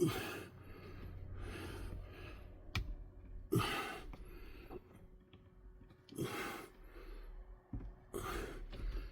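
A man breathing heavily in repeated exhales about every couple of seconds while straining by hand, with a couple of sharp clicks in between.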